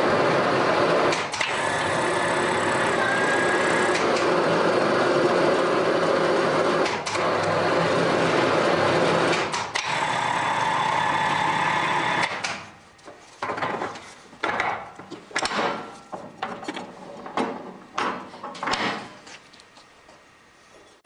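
Factory machinery running with a steady loud noise, broken by abrupt cuts, then from about 12 seconds in a quieter run of irregular short clacks and clicks.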